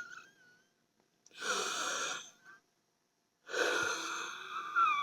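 A person wheezing: two long, noisy breaths, each about a second or more, with a thin high whistle running through them. The whistle is the sound of air forced through narrowed airways.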